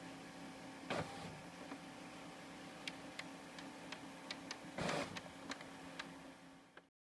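HP Officejet 6600 inkjet all-in-one printer working on a sheet of paper: a steady, faint motor hum with a short whirr about a second in, a run of sharp ticks through the middle, and another short whirr near five seconds. The sound cuts off abruptly near the end.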